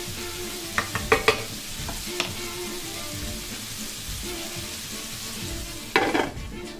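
Adobo-seasoned chicken wings sizzling as they sear in a nonstick electric skillet, with a wooden spoon knocking and scraping against the pan as they are stirred. Near the end a glass lid is set on with a knock, and the sizzle turns muffled under it.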